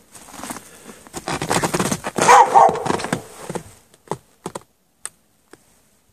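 Dog barking, with the loudest burst of barks about two seconds in. A few short sharp clicks follow near the end.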